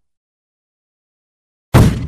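Dead silence, then near the end one sudden, very loud gunshot sound effect of an AK-47-style rifle, with a rolling echo that carries on as it fades.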